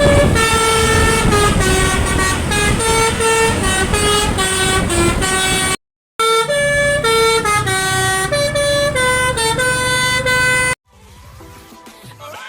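Tour bus Basuri telolet horn played by hand, stepping through a quick koplo-style melody of short steady notes over a low rumble. It cuts out briefly about six seconds in, picks up again, and stops a little before the end, leaving a much quieter background.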